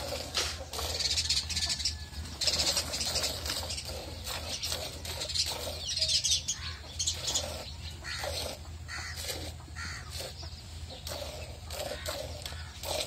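Hand-milking: jets of milk squirting into a steel bucket of frothy milk in a steady rhythm of about two strokes a second. Birds chirp in the background.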